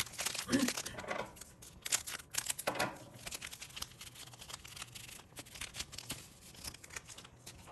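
Foil wrapper of a Pokémon 151 booster pack crinkling and tearing as it is ripped open, with irregular sharp crackles as the cards are slid out of it.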